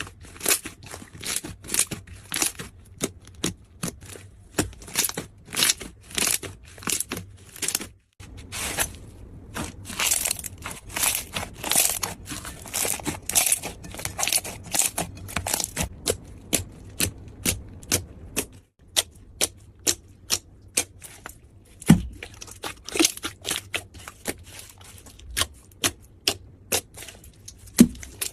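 Slime being pressed and worked by hand, giving a string of sharp crackling pops, a couple a second, with two brief breaks about 8 and 19 seconds in.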